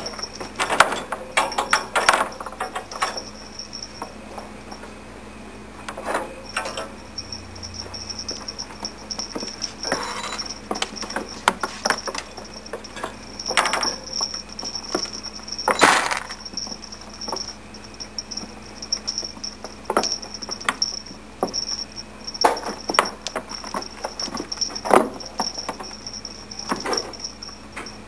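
Kittens playing with a feather wand toy in a wire cage: scattered, irregular knocks, taps and rattles from paws, the wand and the cage, with a few louder clatters.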